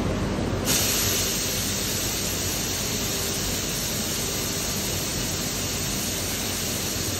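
A steady jet of gas hissing, switching on suddenly under a second in at the laser station where the robot holds the tool, over the constant hum of the cell's machinery.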